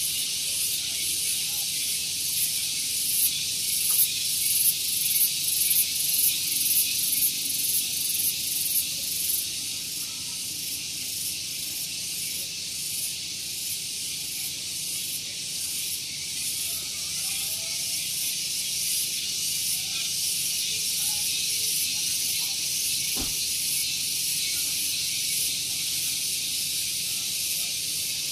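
Cicadas singing, a dense, shrill high-pitched buzzing chorus. For the first nine seconds or so it pulses about twice a second, then it settles into a steady drone.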